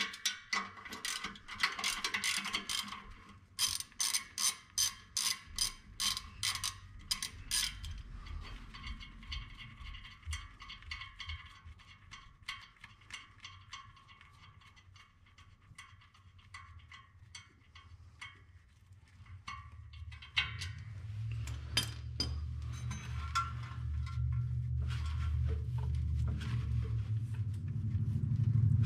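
Hand socket ratchet clicking in quick back-and-forth strokes as it loosens the pressure-plate bolts of a C5 Corvette clutch. The clicking is busiest in the first several seconds and lighter after that. A low rumble builds over the last third.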